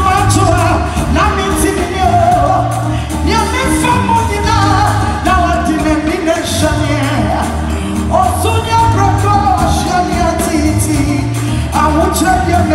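Live gospel music: a woman's lead vocal with backing singers, over a band with a steady, repeating bass line and drums.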